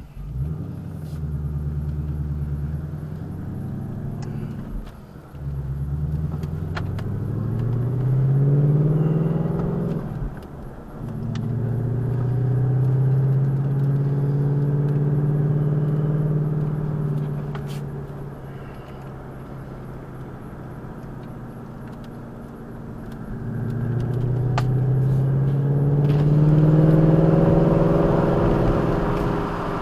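A vehicle engine pulling up through the gears, its pitch rising with a break at each shift about five and ten seconds in. It then holds a steady pace, eases off, and pulls up again near the end.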